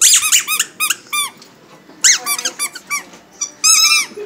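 A German Shepherd puppy chewing a rubber squeaky ball, squeaking it rapidly in three bursts of quick, high squeaks that rise and fall in pitch.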